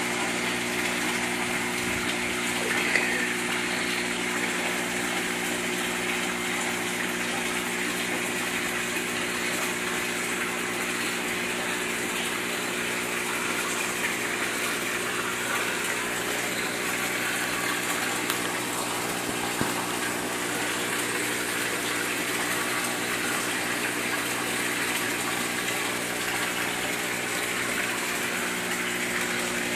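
Steady rush of moving water with a constant low hum from a fish tank's pump, unchanging throughout, with a few faint clicks.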